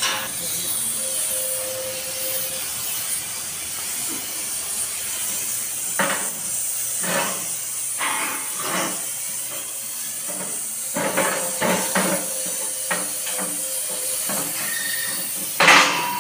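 Oxy-acetylene torch hissing steadily, broken from about six seconds in by a series of short sharp knocks, the loudest near the end.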